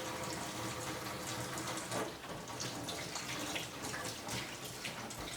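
Steady running water, with small scattered splashes or clatters.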